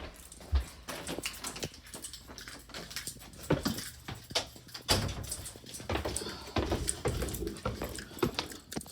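Irregular clicks, knocks and low thumps of someone handling things and moving about.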